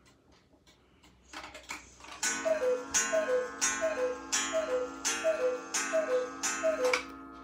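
Mechanical cuckoo clock striking the hour: faint ticking, a brief whirr of the strike train releasing, then seven cuckoo calls, each a high note falling to a lower one from the bellows pipes, with a sharp strike and ringing under each.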